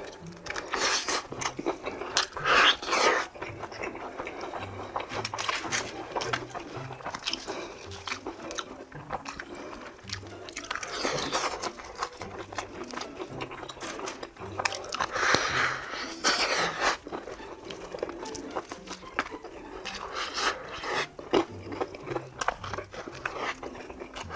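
Close-up crunchy biting and chewing of crispy fried chicken, with a run of loud crunches about 3 seconds in, again around 11 seconds, and a loud cluster near 16 seconds.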